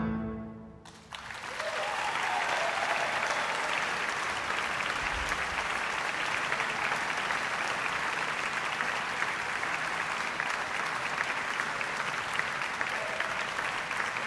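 The last piano chord dies away within the first second, then a concert audience breaks into steady applause that continues to the end.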